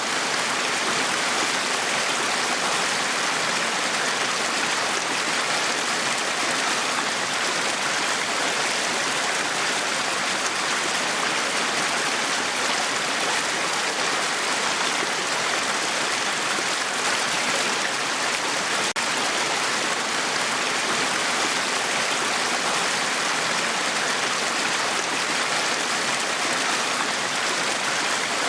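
Small brook running over stones: a steady, even rush of shallow water.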